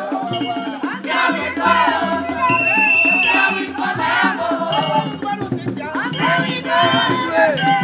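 A group of men and women singing a traditional song together in chorus, with hand percussion keeping the beat. A shrill, held high note sounds for about a second a third of the way in.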